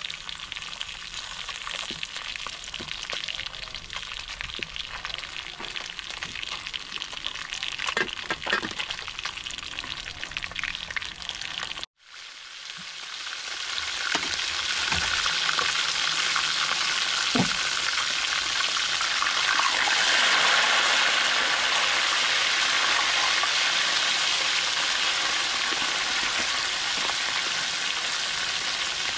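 Tilapia frying in hot oil in a metal wok, sizzling steadily, with a few light knocks of the spatula against the pan. About halfway through there is a brief gap, after which the sizzling builds up louder and fuller and stays there.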